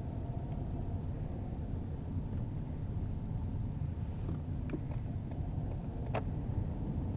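Steady road and engine noise inside the cabin of a 2015 Ford Fusion driving at speed, with a few faint clicks past the middle. No seatbelt reminder chime sounds, even though the driver is unbelted: the reminder is failing.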